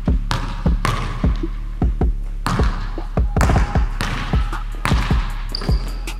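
A basketball dribbled hard on a hardwood gym floor, bouncing several times a second as the player runs, over background music with a steady beat.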